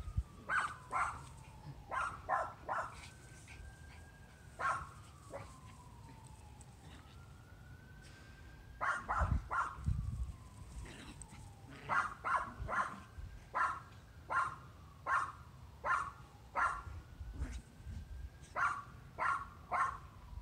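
Small dogs play-wrestling and barking in quick runs of short, high yaps, with pauses between the runs. A far-off siren wails slowly up and down underneath.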